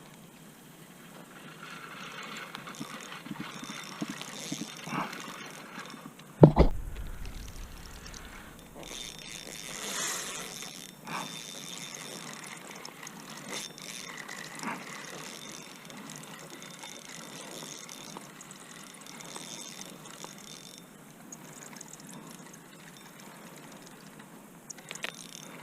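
Water sloshing with scattered small knocks, and one heavy thump about six seconds in.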